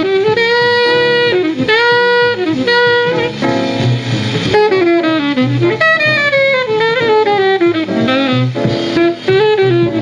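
Bebop small group playing from a 1947 78 rpm shellac record, with an alto saxophone taking a fast melodic line over piano, double bass and drums.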